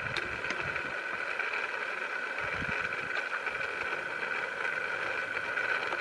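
Small DC motor running steadily, a constant whine, with a few faint low knocks about a second and a half apart near the start and middle.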